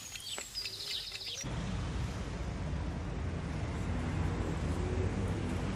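A quiet moment with a few faint high chirps, then, about a second and a half in, a sudden switch to steady outdoor street ambience with a low traffic rumble.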